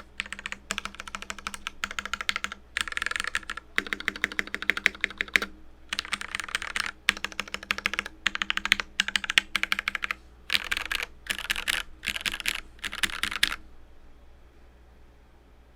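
Typing on a custom mechanical keyboard with linear switches, a KBD67 Lite with Gateron Black switches on a POM plate, in fast bursts of keystrokes separated by short pauses. The typing stops about two seconds before the end.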